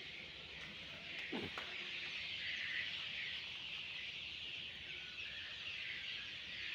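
Birds chirping in a steady, dense high-pitched chorus, with one brief sliding sound about a second and a half in.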